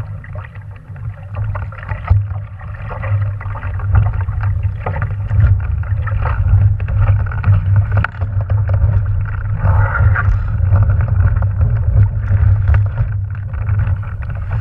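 Wind buffeting the microphone of a camera mounted on a small sailing dinghy as a fluctuating low rumble, with water splashing and lapping against the hull and scattered knocks.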